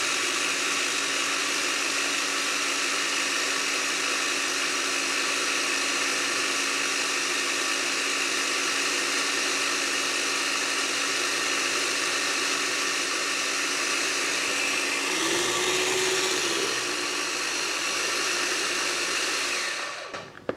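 Kenwood kMix food processor's motor running steadily while flaxseed oil is drizzled into mayonnaise to blend it into a dressing. Its tone changes about fifteen seconds in, and the motor stops near the end.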